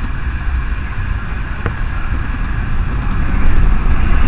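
Low rumble of a coupled pair of Metrolink M5000 trams pulling away along street track, mixed with city street noise, with a single sharp click about one and a half seconds in.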